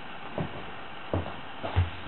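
Footsteps walking across a floor: dull thumps about every two-thirds of a second, the loudest near the end, over a steady hiss.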